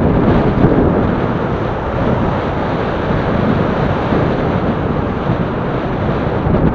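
Steady, loud wind noise buffeting the microphone of a camera on a moving recumbent bicycle.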